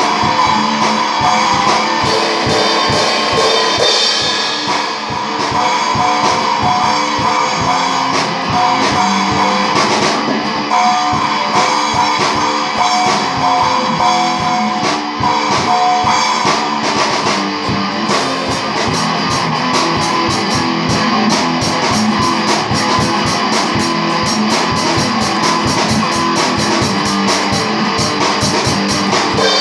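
A small rock band plays live: electric guitar and drum kit together. Partway through, the drumming grows busier, with fast rapid strikes.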